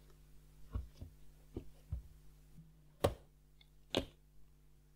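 A few soft knocks, then two sharper, louder taps about a second apart, over a faint steady hum.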